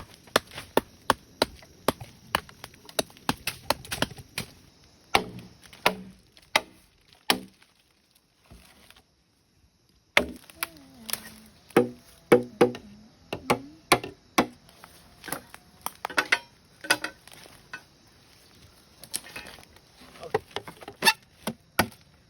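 Repeated chopping blows of a blade into bamboo, sharp knocks coming irregularly, at times two or three a second, with a short break about nine seconds in.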